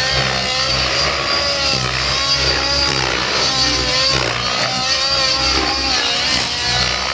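Nitro glow engine of a radio-controlled helicopter running hard in flight, its pitch rising and falling again and again as the helicopter is thrown through aerobatic manoeuvres.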